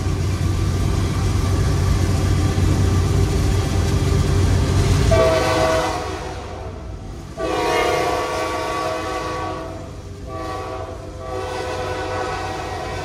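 Diesel freight train led by a GE C40-8 locomotive: a loud, steady low rumble for about five seconds, then the locomotive's air horn sounds four blasts, long, long, short, long. This is the standard warning pattern for a grade crossing.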